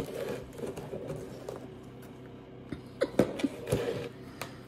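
Close-up chewing and mouth sounds of a person eating a vinegar-dressed salad, with a few short clicks and knocks about three seconds in, over a steady low hum.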